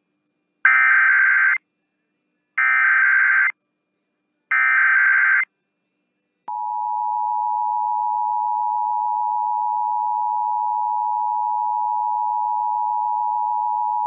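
Emergency Alert System SAME header: three one-second bursts of warbling digital data tones, then the steady two-tone EAS attention signal (853 and 960 Hz together) starting about six and a half seconds in. It marks the start of an EAS Required Monthly Test broadcast on the radio station.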